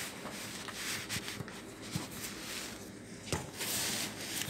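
Rubbing and rustling handling noise against paper and a hard counter, with a few light knocks and one louder rustle near the end.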